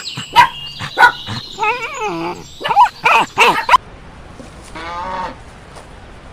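Animal calls: a rapid run of short, pitched cries that bend up and down in pitch and overlap one another, stopping abruptly a little before four seconds in. A single brief call follows about a second later.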